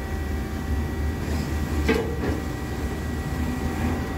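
Hardinge XR700 vertical machining center's table traversing at rapid on the Y axis: a steady machine hum with a low rumble and a constant whine, with a brief clank about two seconds in.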